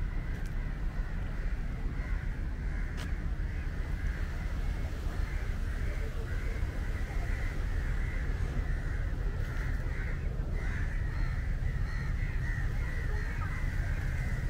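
Birds calling continuously from the trees, an unbroken chatter of short calls, over a steady low rumble.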